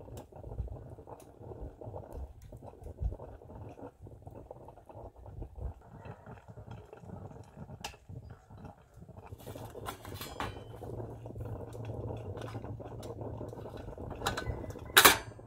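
Stainless stovetop coffee percolator perking on a rocket stove: irregular low gurgling and bubbling as the boiling brew is pushed up into the glass knob, with light crackle from the twig fire. A brief loud knock or scrape near the end.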